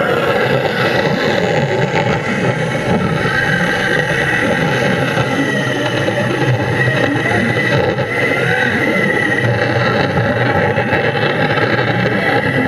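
Air-driven cold-cutting tool (TFT-Pneumatic A-0301) running underwater, its 5 mm cutting disc grinding through a beam. The sound is a steady, loud whine over a dense rushing noise.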